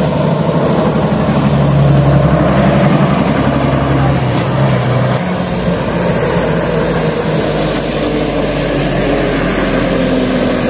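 A crane truck's engine running steadily as the truck drives along a wet road, its note shifting about halfway through.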